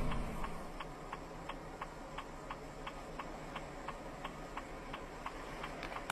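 Even ticking, just under three ticks a second, typical of a car's turn-signal or hazard-light relay heard inside the cabin. In the first half second the tail of a loud knock dies away.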